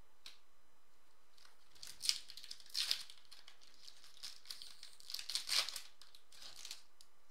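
Foil wrapper of a Topps Chrome football card pack being torn open and crinkled by hand. There are two bursts of crinkling, about two to three seconds in and again about five to six seconds in.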